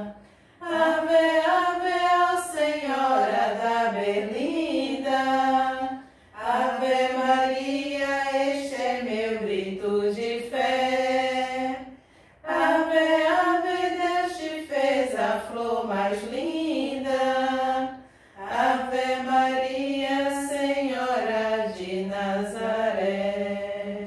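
Women's voices singing a devotional hymn unaccompanied, in four phrases of about five to six seconds each with short breath pauses between.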